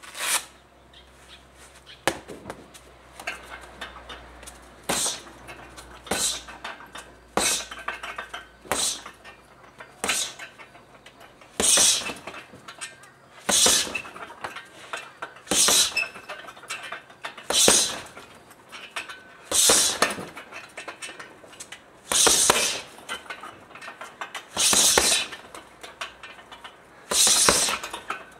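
Boxing-gloved punches landing on a hanging heavy bag, with the bag's chain and hook clinking at the hits. Lighter single punches come about once a second at first; from about twelve seconds in, louder short combinations come roughly every two seconds.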